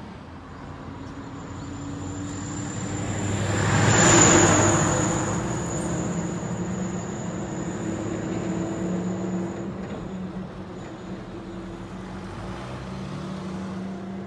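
Road traffic: a car passes close by, its sound swelling to a peak about four seconds in and then fading, over the steady hum of other vehicles. A thin high whine sounds through the first part and fades out about ten seconds in.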